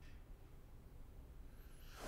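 Near silence: a faint, steady low room hum, with a faint high chirp near the end.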